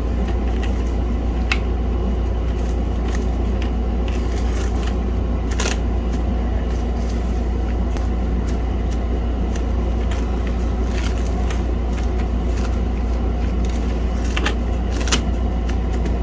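Steady low background rumble with scattered light clicks and crackles from plastic parts and clear plastic wrap being handled.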